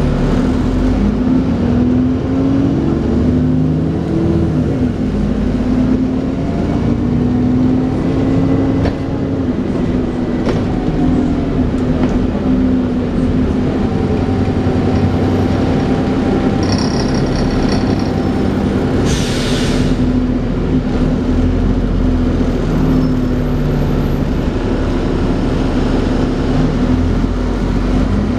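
On board a Dennis Trident 2 double-decker with an Alexander Enviro 400 body, running with its whining "hoover" note, which rises and falls in pitch with road speed over the engine's running. About two-thirds of the way through, a short burst of hiss sounds.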